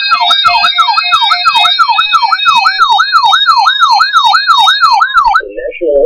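Weather alert radios sounding their alarm: a loud siren tone sweeping up and down about three times a second, with higher beeping tones layered over it. Several alarms overlap out of step at first, and the sweeping cuts off about five seconds in.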